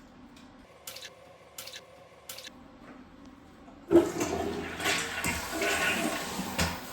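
Toilet flushing: a sudden loud rush of water about four seconds in that surges and runs on, after three light clicks.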